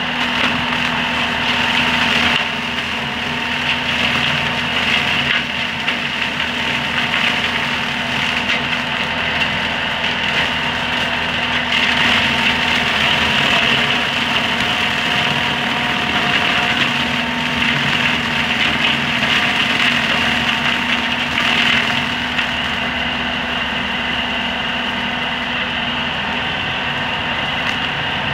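Tractor engine running steadily while driving an ELHO Tornado 560 side-mounted boom mower cutting roadside brush: a loud, continuous mechanical drone with a high hiss that swells and eases.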